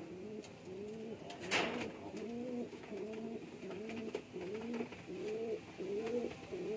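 A male domestic pigeon cooing: a steady series of short, arched coos, about one and a half a second. A single sharp knock sounds about a second and a half in.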